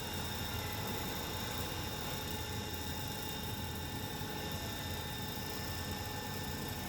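Small electric motor running at a steady speed, a steady whine of several high tones over a low hum.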